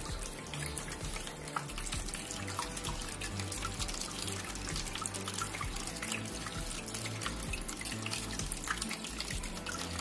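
Water trickling and splashing as it spills from pot to pot down a four-tier cement pot fountain, with many small drips and splashes. Background music plays along.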